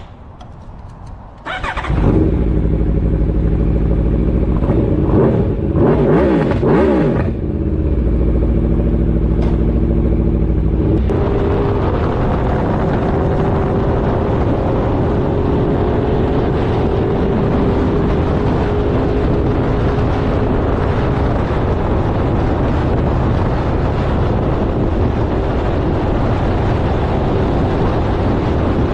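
Motorcycle engine running under way, its pitch rising and falling with the throttle for the first several seconds. From about eleven seconds in it settles into a steady rush of wind noise over a steady engine note at cruising speed.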